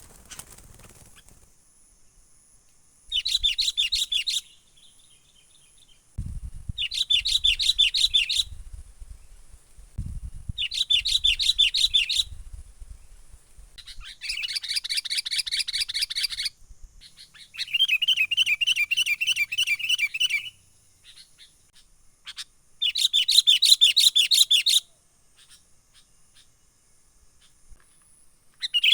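Sooty-headed bulbul (kutilang) calling in its excited 'menggaruda' style: six bursts of fast, rapidly repeated notes, each a second or two long, a few seconds apart. A low rumble sits under the middle bursts.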